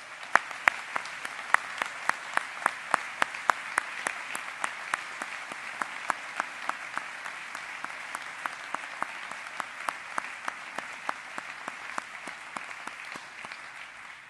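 Audience applauding steadily, with many sharp, loud single claps close to the microphone standing out above the crowd's clapping.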